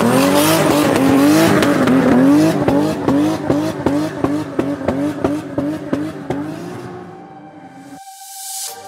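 Car engine revving, its pitch rising and falling, then a run of evenly spaced sharp cracks about three a second that fade away near the end.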